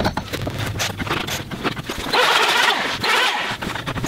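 A quick run of irregular knocks as loose, partly cut wood pieces are knocked off the top edge of a log, followed by two loud rasping bursts, each under a second long.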